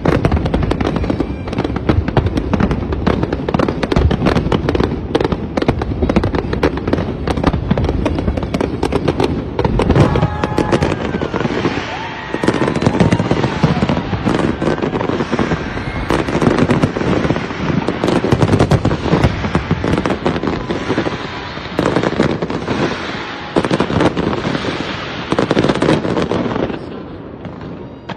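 Fireworks display: a dense run of rapid bangs and crackles, then clusters of louder bursts every couple of seconds, the level dipping shortly before the end.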